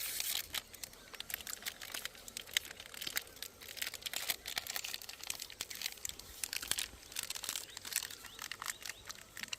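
Dense, irregular crackling and crinkling: many small sharp clicks one after another, with no steady tone.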